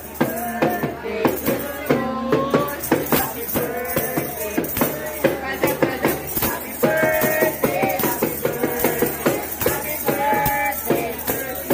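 Several half-moon tambourines shaken and struck in a fast, steady rhythm, with voices singing along.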